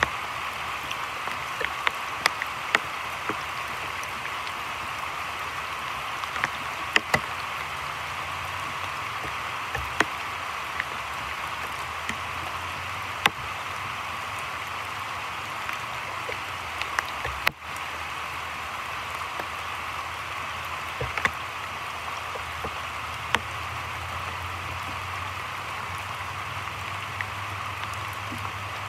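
Heavy rain falling on a creek and the surrounding foliage: a steady hiss with frequent sharp taps of single drops landing close by.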